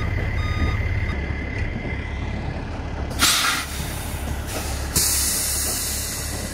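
Peterbilt semi's diesel engine idling while its backup alarm beeps steadily, stopping about a second in. Then its air brakes hiss twice: a short, sharp burst about three seconds in and a longer hiss about five seconds in that fades away.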